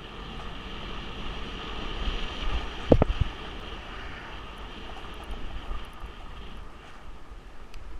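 Wind rushing over the microphone as a fat bike rolls along a paved road, with a quick clatter of knocks about three seconds in as the bike jolts over rough pavement.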